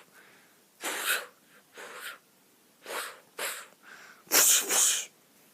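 Six short, sharp hissing bursts, roughly in pairs, with the loudest pair near the end: shooting sounds for a toy pistol firing round after round.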